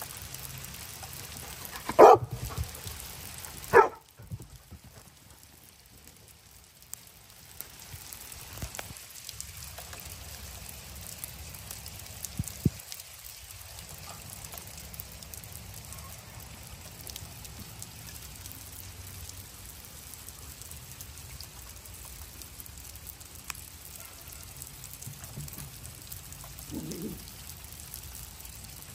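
Small hail pattering steadily on a wooden deck and lawn. A dog barks loudly twice, about two and four seconds in, and gives a softer bark near the end.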